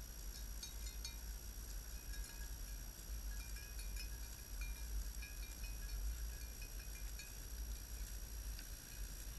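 Small bells tinkling now and then as a herd of goats walks past, with wind rumbling on the microphone.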